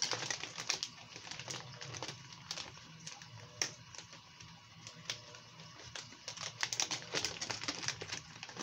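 Clear plastic bait packaging being handled, giving faint, irregular clicks and crinkles, over a low steady hum.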